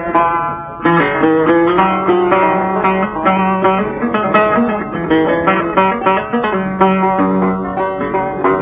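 Instrumental passage of Algerian chaabi music: plucked string instruments play quick melodic runs over sustained low notes, picking up again after a short break about a second in.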